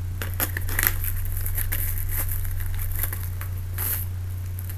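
Clear plastic shrink wrap being peeled off a steelbook case and crinkled in the hand: irregular crackling and tearing, with a louder crinkle near the end.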